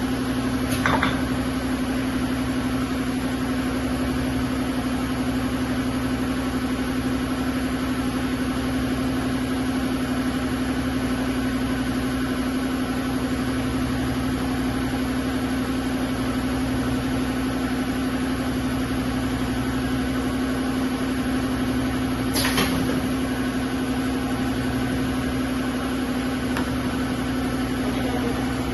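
Single-head uPVC window welding machine running with a steady mechanical hum at one constant pitch. A brief sharp hiss or click comes about a second in and again about 22 seconds in.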